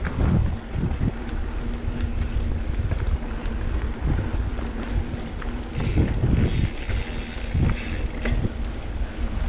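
Wind buffeting the microphone as a low rumble, with irregular thumps and a faint steady hum, and a brief hiss about six seconds in.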